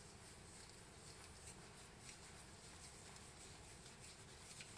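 Near silence, with faint soft ticks and rustles of string being wound around a bamboo tube.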